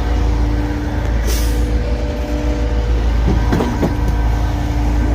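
Truck engine running steadily, with a short hiss of air about a second in.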